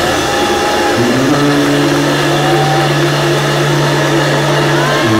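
Live electronic music from a stage band: a long low bass note held for about four seconds starting a second in, with faint gliding tones above it and no clear beat.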